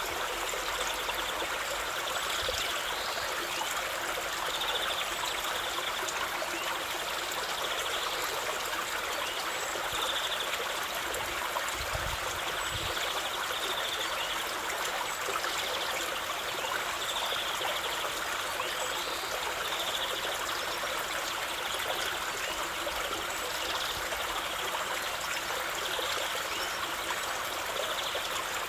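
Water running and trickling steadily, like a small stream or garden water feature.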